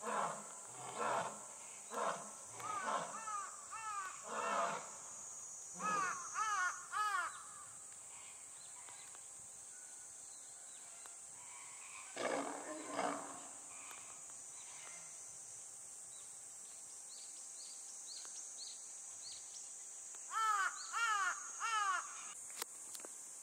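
A lion's roaring bout dies away in a string of evenly spaced grunts over the first few seconds, with crows cawing in short runs. About twelve seconds in, a lioness gives one brief snarl at the male lion. Near the end a crow caws several times close by, over a steady high insect drone.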